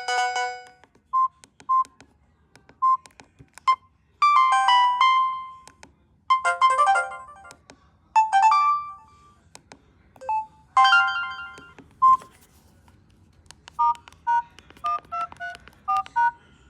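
Samsung GT-E1081T mobile phone's loudspeaker: a looping ringtone stops about half a second in, then come single short key beeps and several brief ringtone melodies, each cut off after about a second. Near the end there is a quick run of short two-note beeps.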